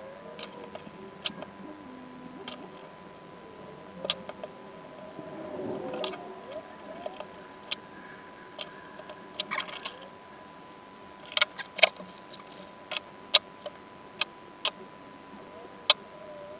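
Small parts being handled by hand during assembly: irregular sharp clicks and taps, a few clustered together, over a faint steady high whine.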